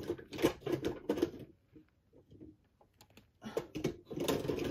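Craft paper punches clattering and knocking together as they are rummaged through in a box: a run of quick clicks, a pause of about two seconds, then more clattering.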